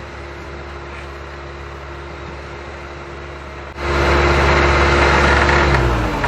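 Heavy diesel engine of an excavator running steadily. A little under four seconds in it suddenly becomes much louder, and near the end its pitch drops.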